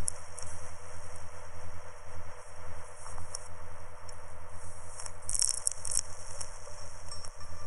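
Background music, heavily filtered: steady low held tones under a rattling, shaker-like percussion, with a louder rattling burst about five seconds in.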